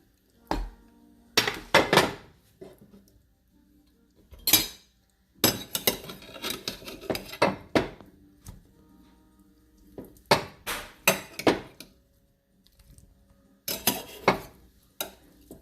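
Spatula and potatoes knocking and clattering against dishes as baked potatoes are moved from one dish into another. The sound comes in several bursts of clinks and scrapes with short pauses between.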